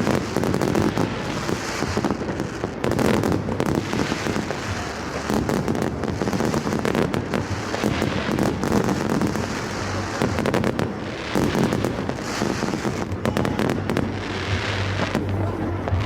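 Fireworks going off in a dense, continuous barrage: many overlapping bangs and crackles with no gap.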